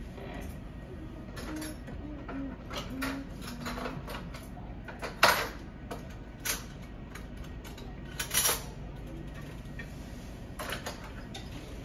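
Scattered sharp clicks and light knocks over a steady background, the loudest about five seconds in and a pair just past eight seconds.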